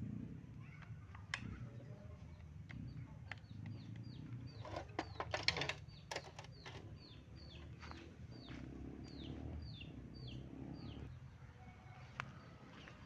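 A bird calling a long run of short, falling chirps, about two or three a second, with a few sharp clicks and clinks from handling small chainsaw parts about five to six seconds in.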